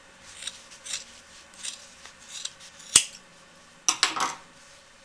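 Scissors snipping through a rolled cone of wool prefelt: several short cuts about half a second apart, a sharp click of the blades about three seconds in, and a few more snips near the end.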